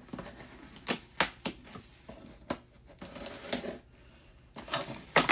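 Packaging being handled and opened by hand: irregular clicks, taps and rustles of a box and its contents, loudest near the end.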